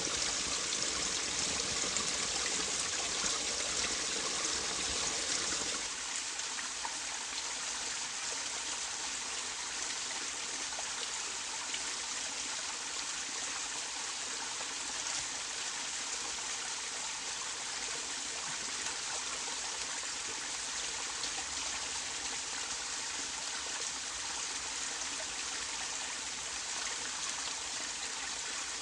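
Steady rush and trickle of flowing stream water; the deeper part of the sound drops away suddenly about six seconds in.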